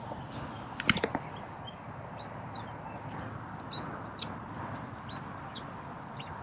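Outdoor ambience: scattered short bird chirps over a steady background hiss, with a few sharp clicks about a second in.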